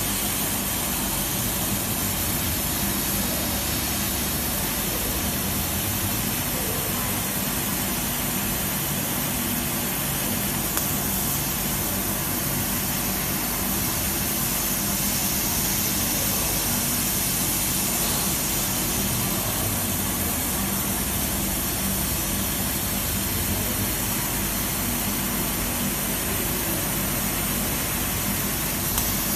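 400-watt die-board laser cutter running while it cuts a shape into a die board: a steady hiss with a low hum underneath, unchanging throughout.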